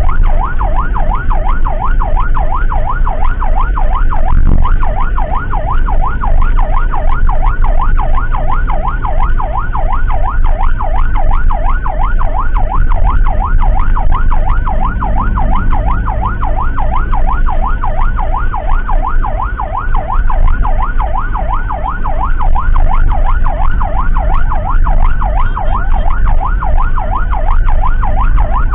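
Emergency vehicle siren in a fast yelp, sweeping up and down several times a second without a break, over the steady low rumble of the vehicle on the road.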